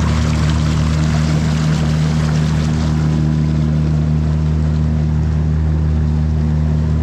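Boat engine running at a steady speed as the boat moves, a constant low hum, with water hissing and splashing along the hull that eases about three seconds in.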